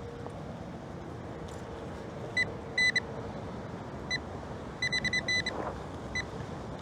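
Nokta Triple Score metal detector giving short high-pitched target beeps, singly and in quick clusters of three or four, as the coil sweeps over the ground.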